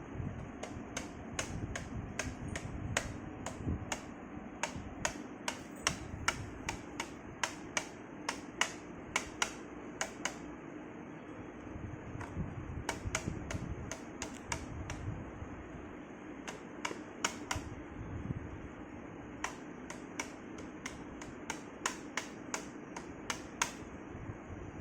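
Irregular sharp clicks and taps, sometimes in quick runs of several, from a child working on a toy truck by hand.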